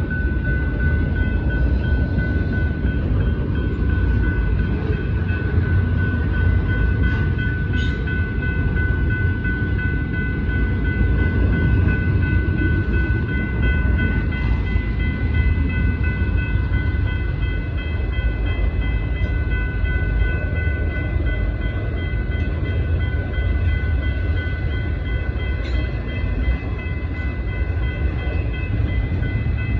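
Freight train of autorack cars rolling steadily past a grade crossing, a continuous low rumble of wheels on rail. Over it, the crossing's warning bell rings without a break at a high pitch.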